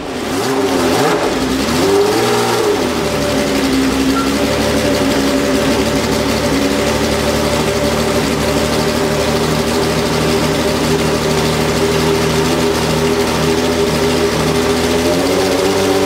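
Ferrari 412 T2 Formula 1 car's 3.0-litre V12 revving up and down briefly, then idling steadily.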